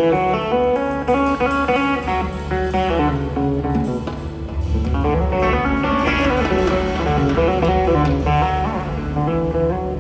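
Live electric guitar playing a melodic lead line of single notes over a bass guitar.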